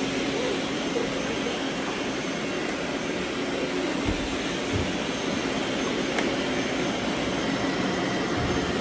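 Several robot vacuums running together: a steady whirring hum of motors and brushes, with a few soft low bumps.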